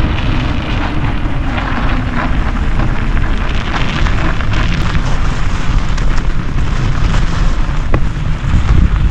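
Loud wind rumble on the microphone together with bicycle tyre noise on a snow-covered road while riding, with a couple of sharp clicks near the end.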